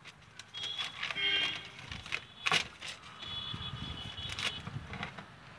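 A plastic jar being handled on hard ground: a few sharp knocks and taps of plastic, the loudest about halfway through, with scraping between them.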